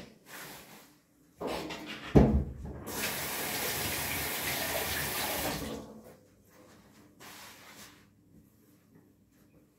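Kitchen tap running into the sink for about three seconds and then shut off, after a sharp knock at the sink.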